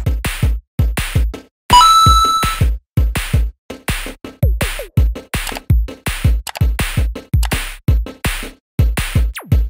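Electronic intro music with a steady drum-machine beat, about two beats a second. A bright ding rings about two seconds in, and a falling swoosh comes near the end.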